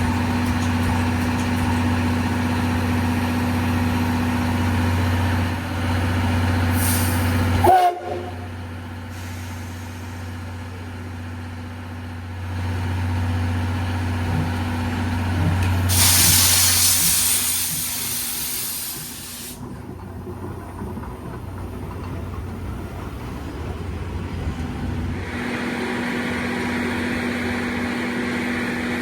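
Steam locomotive standing at a station: a steady low mechanical hum, broken by a sharp knock about eight seconds in. About halfway through comes a loud hiss of steam lasting some three seconds, and a steady hum returns near the end.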